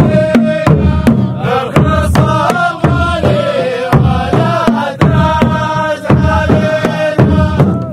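Men chanting together in unison over a steady beat of drums, traditional Saudi sword-dance music.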